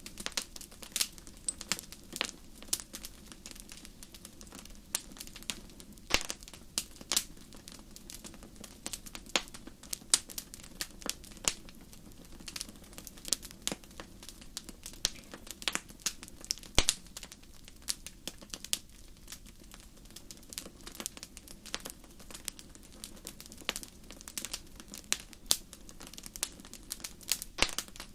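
Wood fire crackling: irregular sharp pops and snaps from burning logs, dense and uneven, over a low steady hiss of flame.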